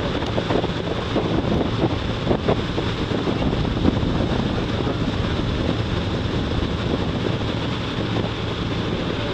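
Wind buffeting the microphone over the steady low hum of a motorboat's engine running at speed.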